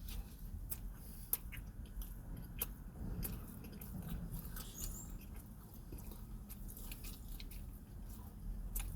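Close-up chewing and biting of fast food, with scattered wet mouth clicks, over a low steady rumble.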